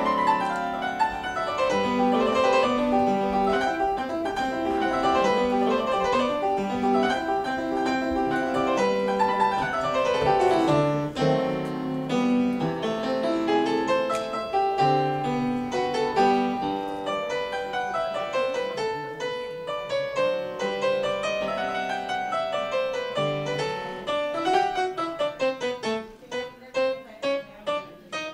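Solo piano playing a postlude, with flowing runs of notes sweeping up and down. Near the end the notes thin out into single chords and notes struck one at a time.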